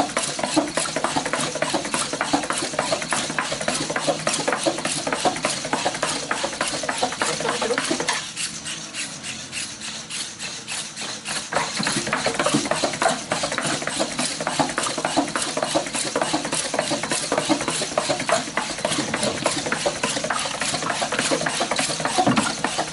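Oncilla quadruped robot trotting on a mat: a rapid, continuous clatter of its feet and leg joints. The clatter softens about eight seconds in for roughly three seconds, then comes back at full strength.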